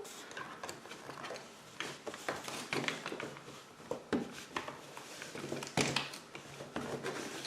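Hard plastic toy parts of a Playmobil Zippleback dragon being handled and pressed together, giving scattered small clicks and taps as a wing is worked into its socket, with a sharper click near six seconds.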